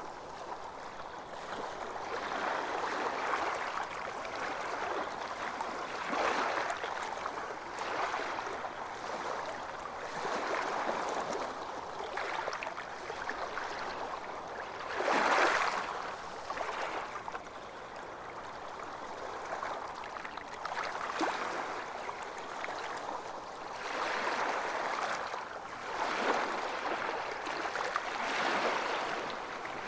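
Small waves washing onto a beach: a continuous hiss of surf that swells and ebbs every few seconds, with one louder wash about halfway through.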